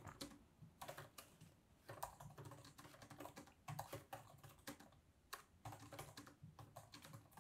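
Faint typing on the scissor-switch keyboard of a 16-inch M1 Pro MacBook Pro: soft key clicks in irregular runs, with short pauses between them.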